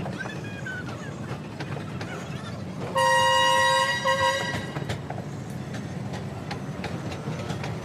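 Rail track maintenance machine running on the rails with a steady rumble and clicking. About three seconds in it sounds its horn in one long blast, then two short toots.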